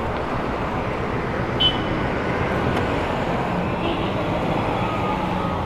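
Steady traffic and road noise, with a short high chirp about one and a half seconds in.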